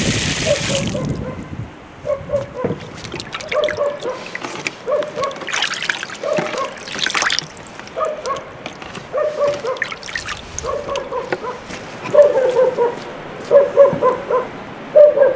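Water from a garden hose splashing into a metal bowl for about the first second, then a dog barking in short repeated barks, about one a second, louder near the end.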